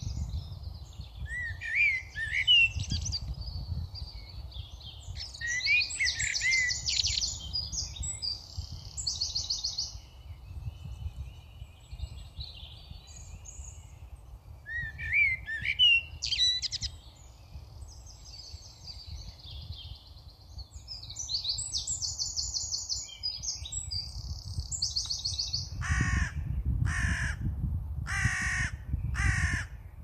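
House sparrows calling: chirps and rapid trilled begging calls from fledglings being fed by the adults, in clusters with short gaps. Near the end come four loud harsh calls about a second apart.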